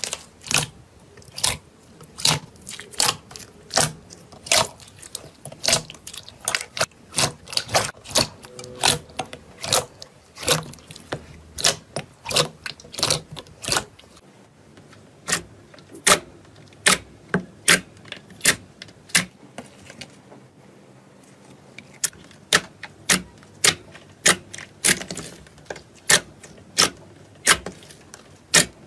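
Slime being pressed and worked by hand, making sharp clicking pops about twice a second, with a short pause about two-thirds of the way through.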